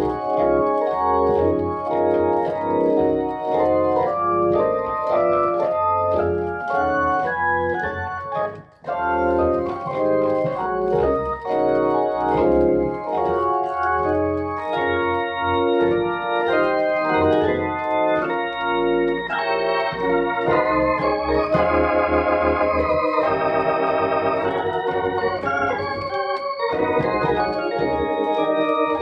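Hammond XK-1 combo organ playing chords in a church, with bass notes from MIDI bass pedals underneath. The playing pauses briefly about nine seconds in, and from about twenty seconds in the tone takes on a fast warble.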